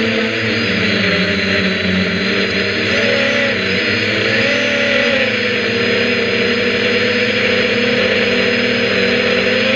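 Quadcopter's electric motors and propellers buzzing, heard up close from a camera mounted on the drone. The pitch wavers up and down with the throttle for the first few seconds, then holds steady.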